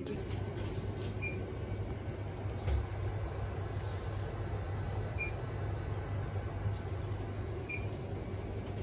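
Steady low hum and rumble of a moving vehicle heard from inside, with three faint, short, high beeps.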